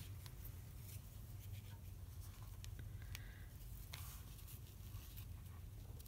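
Faint rustling and soft clicks of fabric scraps being handled, folded and fitted onto a quilt block, with one sharper tick at the start. A low steady hum runs underneath.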